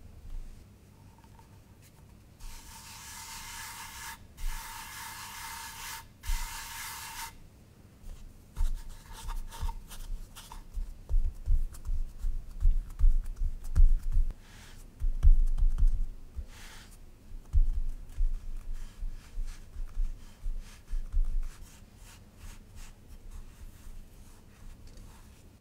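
Fingers pressing and patting a ball of pizza dough flat on a floured wooden board: a run of short, dull thumps with rubbing, thickest in the middle and thinning toward the end. Before that, about three seconds in, a few seconds of hissing as flour is scattered over the board.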